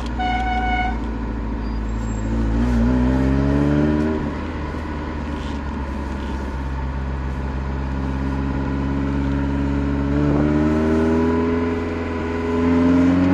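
Ferrari Mondial 3.2's V8 on a custom exhaust, heard from inside the cabin under way. It pulls up through the revs, drops sharply about four seconds in as a gear is changed, runs steadily, then rises again near the end. A short high beep sounds right at the start.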